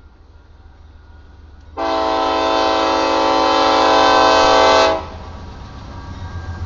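GE AC44C6M diesel locomotive's air horn sounding one long blast of about three seconds, a chord of several tones that starts and cuts off sharply. Under and after it, the locomotive's diesel engine rumbles and its wheels on the rails grow louder as it passes.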